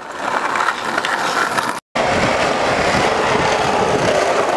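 Skateboard wheels rolling over concrete, a steady rolling noise. It cuts out abruptly just under two seconds in and comes back louder.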